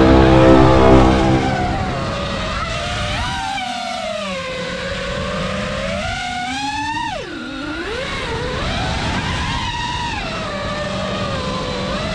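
FPV racing quadcopter's brushless motors whining, their pitch rising and falling as the throttle changes, with a steep climb then a sharp drop about seven seconds in. The first second and a half is louder and deeper.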